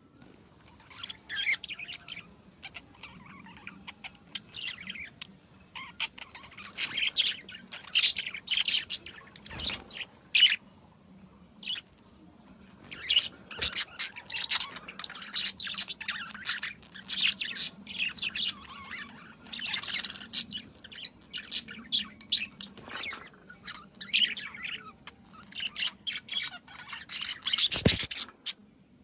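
Small birds chirping and tweeting, many quick, high short calls overlapping almost without pause, with a brief louder burst near the end.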